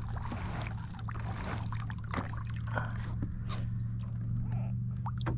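Water trickling and lightly splashing against a kayak's hull as a paddle and pole are moved through it, with a few small knocks of gear scattered through.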